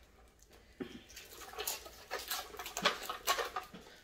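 Scratchy rustling and light clicks, starting about a second in, from small cardboard puzzle boxes being opened and the jigsaw pieces inside being handled.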